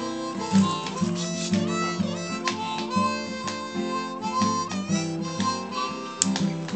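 Background music led by a harmonica over guitar, in a bluesy style.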